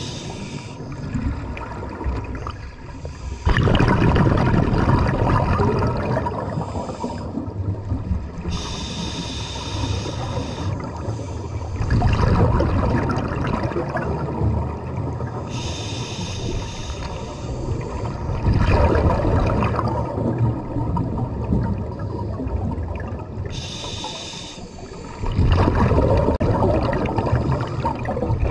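Scuba breathing through an open-circuit regulator underwater, heard close up. Each breath is a short hissing inhale through the demand valve, then an exhale that sends out a loud burst of bubbles. There are four breaths, about one every seven to eight seconds.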